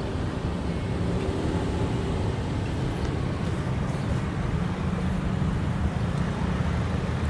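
Toyota car's engine idling: a steady low hum, so smooth that it barely seems to be running.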